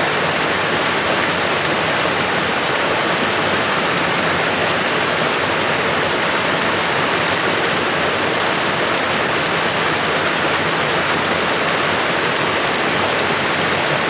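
Small mountain stream rushing in a steady cascade over mossy boulders: an even, unbroken sound of falling water.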